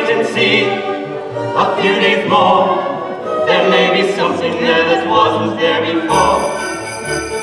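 Show tune from a stage musical: voices singing with vibrato over an orchestra. About six seconds in the singing stops and the orchestra moves into a new passage with bright chiming tones over a low bass.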